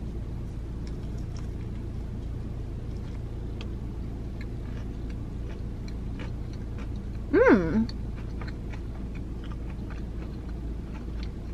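A person chewing a bite of a fried chicken tender in a bun with pickles: faint wet mouth clicks and soft crunching. About seven seconds in, a short closed-mouth "mmm" of approval.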